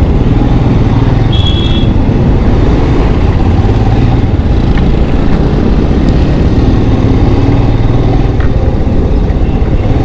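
Steady, loud road noise of riding a motorbike through city traffic: a low rumble of engine, tyres and traffic. A brief high beep sounds about a second and a half in.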